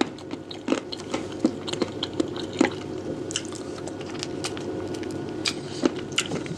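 Close-miked eating of chicken and barberry rice: wet chewing with irregular sharp mouth clicks and smacks.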